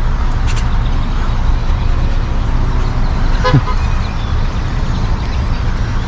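Chatter of a huge flock of birds passing overhead over a steady low rumble of traffic or wind. One short falling pitched call or toot sounds about three and a half seconds in.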